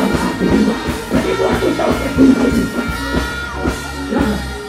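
Loud live concert music with drums, bass and guitar played through the stage sound system.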